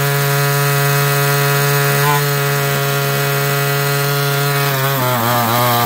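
Small two-stroke gas engine of an RC buggy running at steady high revs. About five seconds in, its pitch starts to waver and then begins to fall as the engine runs out of fuel.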